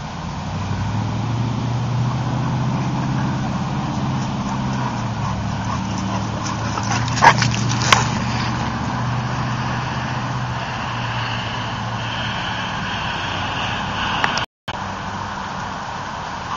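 A motor vehicle's engine running steadily with a low hum, with two sharp clicks about seven and eight seconds in.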